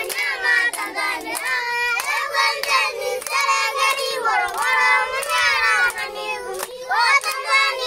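A group of young schoolchildren singing together and clapping their hands along with the song.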